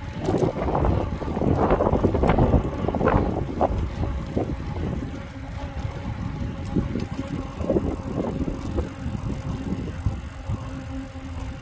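Bicycle rolling along a concrete path: tyre rumble and wind buffeting the microphone, with a faint steady hum underneath. The gusts are loudest in the first few seconds, then ease off.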